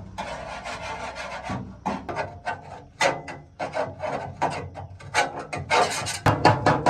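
Repeated rasping, scraping strokes of a hand tool on a machine part, about three a second, quickening and getting louder near the end.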